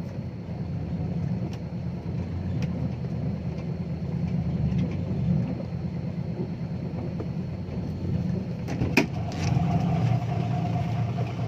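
Six-wheel dump truck's engine running steadily as the truck drives, with one sharp knock about nine seconds in.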